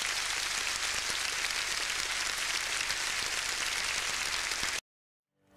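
Audience applause, a steady dense patter of many hands clapping, that cuts off abruptly a little under five seconds in, leaving a moment of silence.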